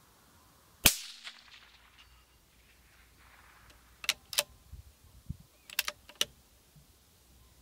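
A single shot from a moderated CZ .17 HMR bolt-action rifle, one sharp crack with a short fading tail about a second in. It is followed by two groups of sharp clicks, near the middle and again about six seconds in, as the bolt is worked to chamber the next round.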